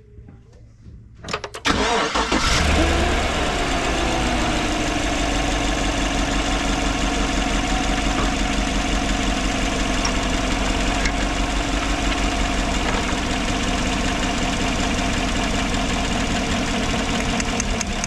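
A 2014 GMC truck's 5.3L V8 is cranked by the starter about a second in, catches almost at once with a short rise in revs, then settles into a steady idle. It is running on a dead ignition coil, now moved to cylinder #3, so that cylinder is misfiring.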